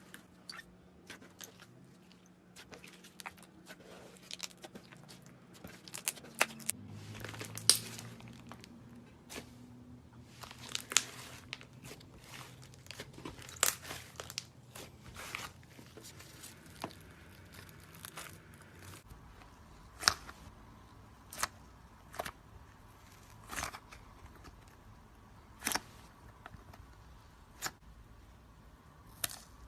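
Slime being squeezed and pressed, giving irregular sharp pops and crackles that come thick at first and then space out to single pops every second or two.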